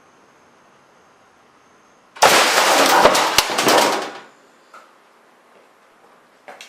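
A large spring-valved air cannon, charged to 500 psi, fires: a sudden loud blast about two seconds in, then a rush of escaping compressed air lasting about two seconds, with two sharp cracks inside it, before it fades.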